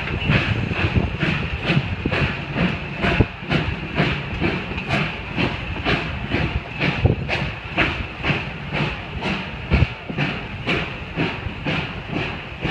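Passenger coaches of a steam train rolling past, their wheels clicking over the rail joints about three times a second over a steady hiss.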